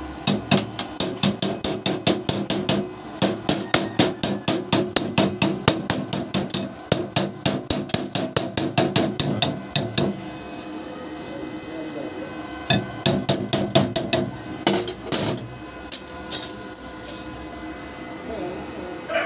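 Chipping hammer knocking slag off fresh arc-weld beads on a steel plate: quick, sharp metal strikes about five a second for roughly ten seconds, then a short pause, a second run of strikes and a few last taps. A faint steady hum runs underneath.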